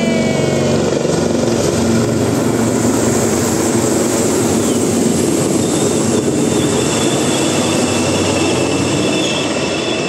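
Several helicopters flying low overhead in formation: a loud, steady mix of rotor and turbine engine noise. A high engine whine joins about two-thirds of the way through.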